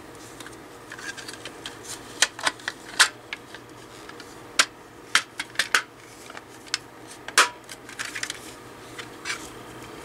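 Hard plastic fan housing halves clicking and knocking as they are handled and fitted back together, in irregular sharp taps.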